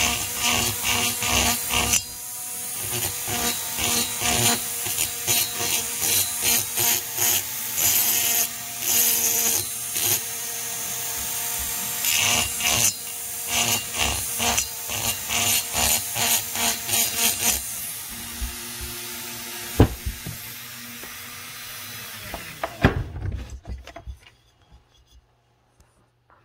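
A small high-speed rotary tool runs steadily while its bit grinds a chamfer on the port edges of a two-stroke chainsaw cylinder, in repeated short passes of rasping contact. The tool shuts off about 23 seconds in.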